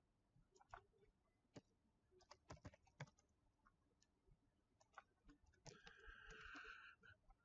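Faint computer keyboard typing and mouse clicks, a few scattered keystrokes at a time, as code is edited in a text editor. A brief faint hiss comes in near the end.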